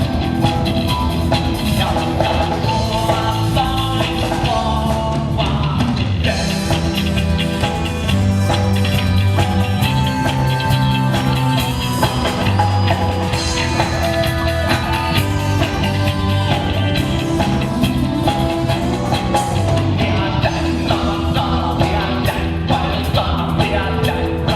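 Rock band playing a song with a steady drum kit beat, bass and guitar, with a sung melody over it.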